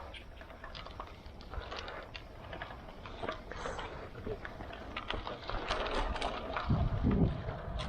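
Irregular clicking and rattling from a road bike being ridden, over a low rumble. It grows busier and louder in the second half, with a heavier low thump about seven seconds in.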